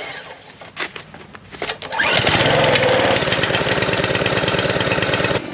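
Small gasoline engine of a Husqvarna pressure washer being started: a few short knocks, then it catches about two seconds in, revs up briefly and settles into a steady run.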